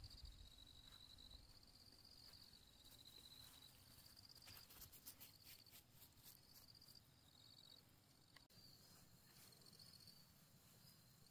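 Very faint insects chirping in short high trills, over and over, with a brief patch of soft crackling rustle a little before the middle.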